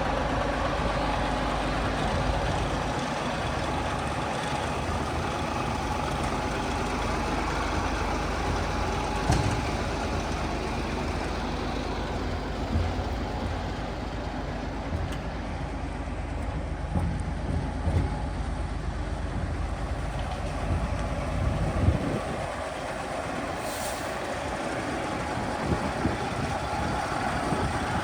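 Hino FM700 8x4 concrete mixer truck's diesel engine running steadily with a low rumble, and a few short knocks.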